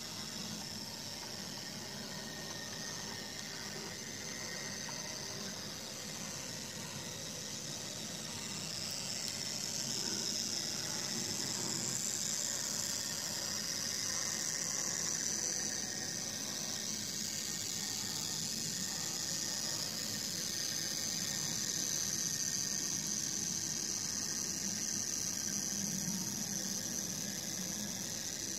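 Märklin 36240 class 24 model steam locomotive with its freight wagons running on the layout track: a steady high-pitched whir of motor and wheels on rails, growing louder about a third of the way in as the train comes nearer.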